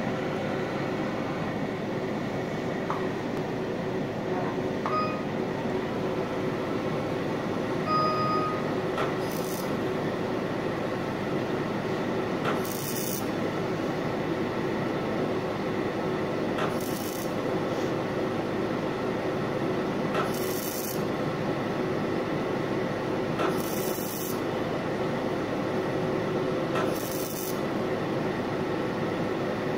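Excimer laser running during PTK corneal surgery: a steady rasping buzz with a faint hum, broken every three to four seconds by a short high hiss.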